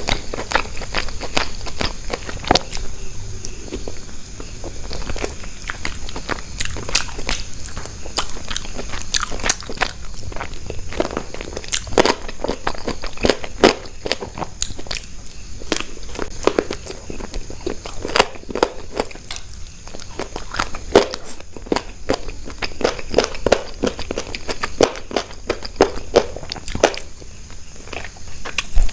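Close-miked eating: a steady run of crunchy bites and chewing, with many sharp crackling crunches.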